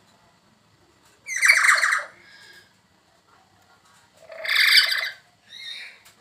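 A bird giving loud, harsh squawks: two calls about three seconds apart, each under a second long, then a fainter call near the end.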